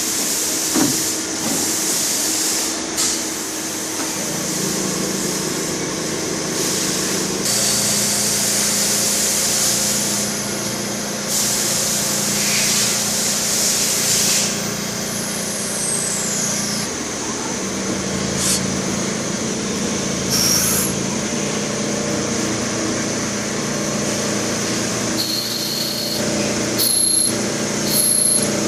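Hanwha XD26H CNC Swiss-type sliding-headstock lathe running a machining cycle: a steady spindle hum that steps in pitch, with stretches of hissing that start and stop every few seconds. Short high tones repeat near the end.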